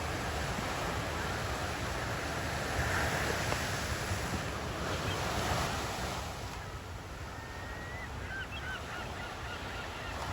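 Ocean surf washing on a beach, a steady hiss that swells louder about three to six seconds in. Near the end come a few faint, short bird calls.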